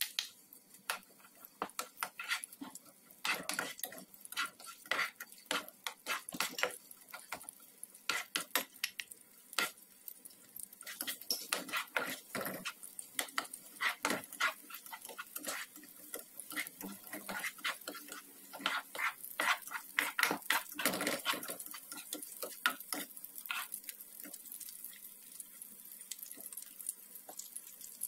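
A slotted spatula stirring chopped onion and garlic in hot oil in a nonstick frying pan: many irregular scrapes and taps against the pan over a light sizzle.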